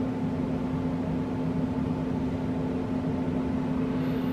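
A steady machine hum with one constant low tone over an even hiss, like an appliance or fan running.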